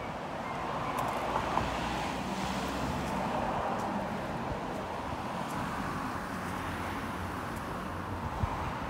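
Steady outdoor hum of distant road traffic, with a few faint ticks.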